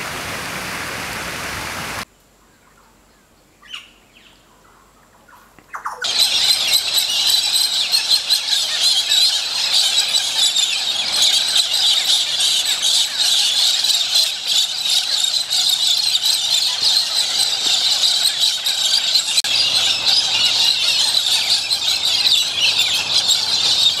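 A flock of galahs screeching and squawking in a dense, unbroken chorus of shrill calls, starting about six seconds in. Before that, a steady hiss stops about two seconds in, followed by a few near-quiet seconds with one faint chirp.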